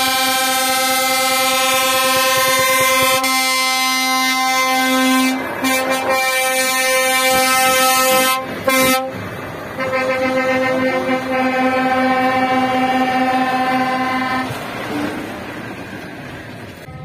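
Truck air horn held in long, steady, loud blasts. A blast of about five seconds is followed by a shorter one and then another of about five seconds, which stops near the end.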